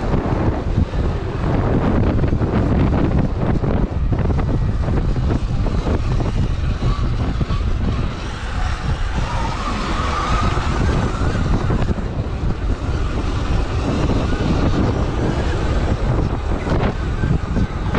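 Sur-Ron Light Bee electric dirt bike being ridden off-road, with heavy wind buffeting on the microphone. A higher whine from the electric motor comes up around the middle.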